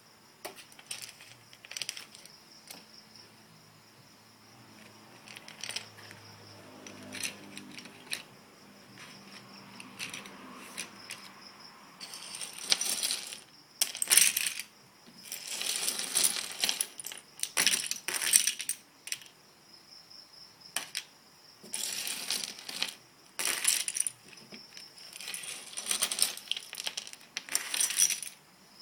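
Small plastic Lego bricks clattering and clicking as they are handled and rummaged. The first half has only scattered clicks; from about halfway through come busy bursts of rattling.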